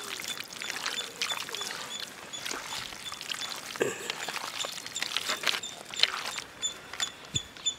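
Ingredients being poured into a cooking vessel, with irregular crackling and scraping. A high, thin chirp repeats in the background, coming more often in the second half.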